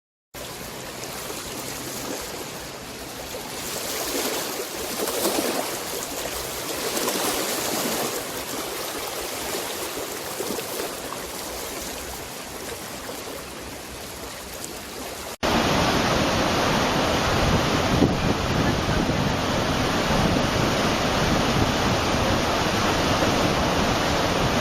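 Steady rushing water noise that swells and eases. About fifteen seconds in it cuts abruptly to a louder, denser rush.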